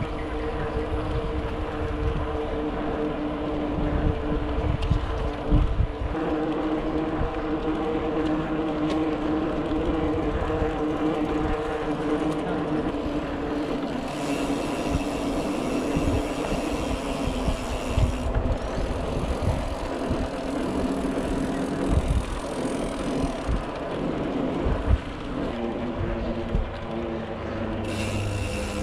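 Mountain bike rolling along a paved path: a steady hum from the tyres and wind buffeting the microphone. The rear freehub's ratchet buzzes while coasting, for a few seconds about halfway through and again near the end.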